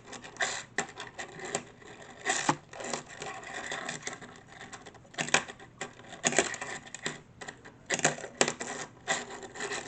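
A Hot Wheels Skate fingerboard being skated by finger on a hard surface: the wheels roll and the small board clacks again and again as it is popped and lands, in irregular sharp clicks with a few louder knocks.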